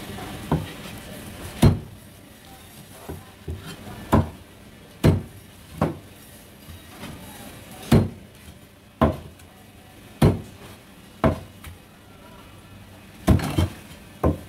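Meat cleaver chopping stingray wing pieces on a thick round wooden chopping block: about a dozen sharp chops at an uneven pace of roughly one a second, with two in quick succession near the end.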